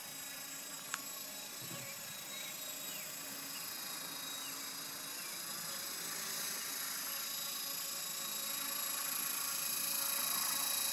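E-flite Blade 400 electric RC helicopter in flight: a steady high-pitched whine from its brushless motor and rotor, growing louder over the last few seconds as it comes closer. A single sharp click about a second in.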